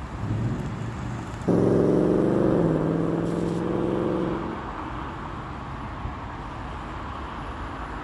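A car engine running close by: a steady drone comes in suddenly about a second and a half in and fades out some three seconds later, over a constant low traffic rumble.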